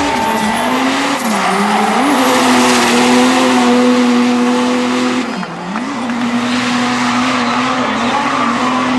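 The tuned 3.0-litre OM606 straight-six turbodiesel of a drifting Mercedes W123 wagon held at high revs under load. Its note dips and climbs back about a second and a half in, again at two seconds, and near five and a half seconds, over the steady hiss of rear tyres spinning and smoking.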